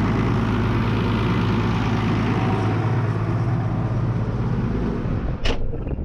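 Ford farm tractor's diesel engine running steadily, heard close up. About five and a half seconds in there is a sharp knock, after which the engine sounds quieter and duller.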